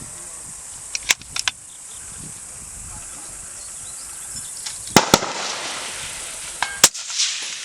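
Suppressed centre-fire rifle shots on a precision range: a few fainter sharp cracks about a second in, then louder shots, two close together about five seconds in and another near seven seconds.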